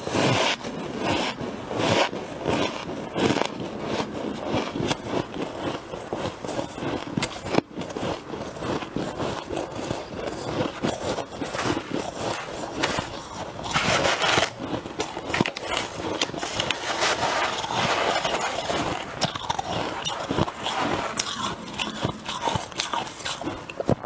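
Close-up crunching and scraping of freezer frost: a dense, uneven run of gritty crunches.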